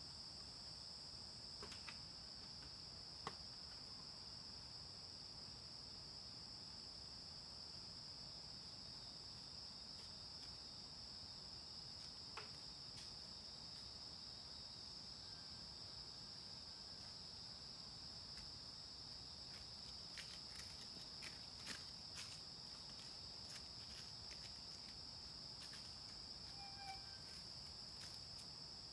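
Steady, high insect chorus. A few faint clicks and taps sound over it, mostly in the second half.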